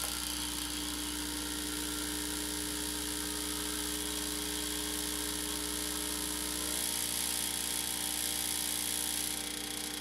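Starbucks Barista (Saeco) espresso machine's pump buzzing steadily while brewing a double shot of espresso. About seven seconds in the pump sound changes and the lower part of the hum eases off.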